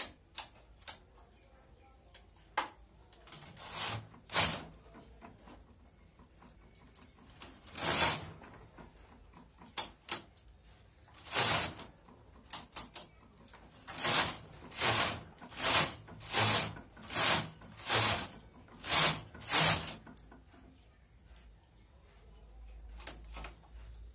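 Hand knitting machine being worked: short sliding, rattling strokes of its carriage and needle bed. A few come singly, then a regular run of about eight follows, one a little under a second apart.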